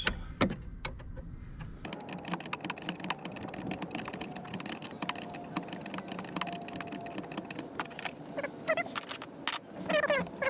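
Irregular light clicks and taps of a wrench working the brake-line fittings on a car's brake master cylinder.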